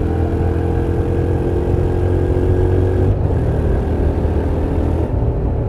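Honda NC750X's 745 cc parallel-twin engine and exhaust running under way at road speed, a steady engine note over low rumble. The note changes about three seconds in.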